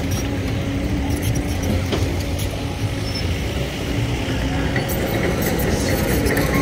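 Diesel engines of the jeeps and the excavator running steadily: a dense low drone with a steady hum.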